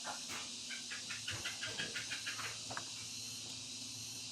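A quick run of about a dozen short animal chirps, about six a second, over a steady hiss and a faint low hum.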